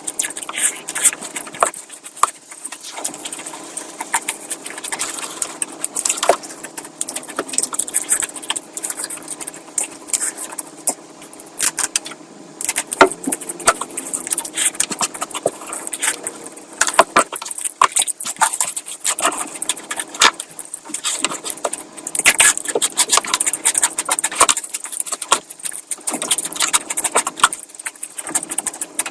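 Close-miked eating sounds of someone chewing mouthfuls of curry: a steady, irregular stream of small wet clicks, smacks and crackles.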